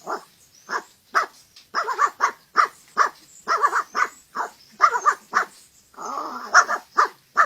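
A man imitating a Pekingese dog with his mouth: a rapid run of short yapping barks, two or three a second, with one longer, rougher call about six seconds in.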